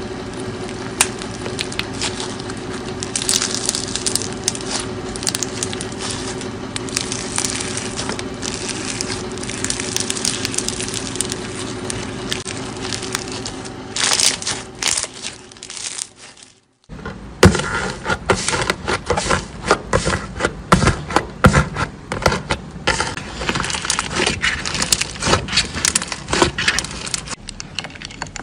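Foam-bead slime (floam) being squeezed and pressed by hand, giving a dense, steady crackling of tiny pops. After a brief silence about halfway through, a second slime is worked by hand with louder, sharper popping clicks.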